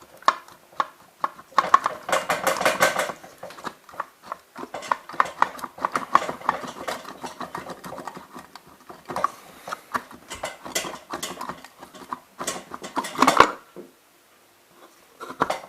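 Clicking and clattering of small hard parts being handled while a submersible well pump's internal stages are pulled out and set down, with a dense rattle about two seconds in and a sharp knock near the end.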